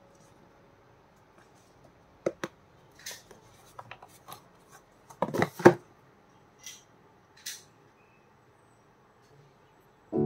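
Packaging being handled by hand during unboxing: scattered small clicks, taps and crinkles of cardboard and plastic, with a louder rustling cluster a little over five seconds in as the small thumb-grip packet is handled. Background music starts just before the end.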